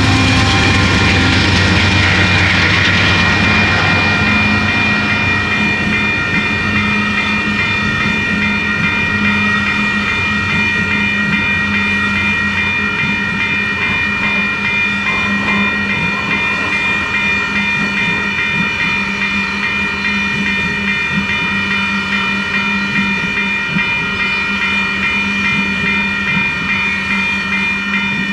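Union Pacific diesel locomotive passing, its low rumble fading over the first few seconds. Then a VIA Rail passenger trainset of Siemens cars rolls past with steady wheel-on-rail noise, while the grade-crossing bell rings on throughout.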